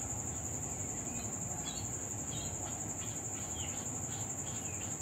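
Faint, repeated peeping of young poultry, short chirps falling in pitch every half second or so, over a steady high-pitched tone.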